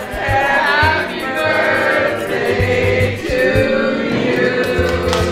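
A small group of people singing together in held notes, with a steady beat of background music beneath.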